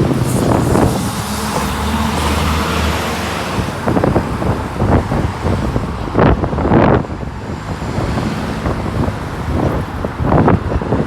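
2006 Orion V diesel transit bus engine running with a low steady hum, strongest in the first few seconds, while gusts of wind buffet the microphone several times.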